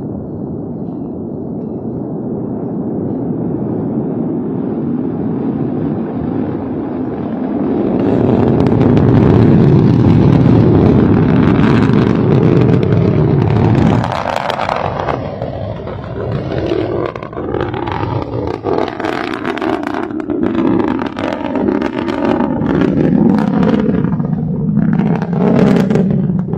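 Long March 4C rocket's first-stage engines at liftoff: a deep roar that builds through the first seconds and is loudest about ten seconds in. It drops abruptly around the middle, then continues as a fast, ragged crackle while the rocket climbs away.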